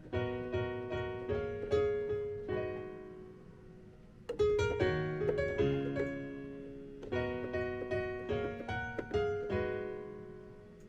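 Piano chords and short melodic figures on a keyboard, each struck chord left to ring and fade. Louder new phrases come in about four and seven seconds in.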